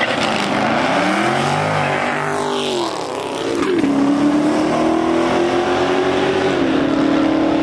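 Supercharged Callaway Corvette and Scat Pack V8s launching at wide-open throttle in a drag race. Engine pitch rises and falls as the cars pass close, then a steady, slowly climbing engine note as they pull away, with two sharp drops in pitch at upshifts.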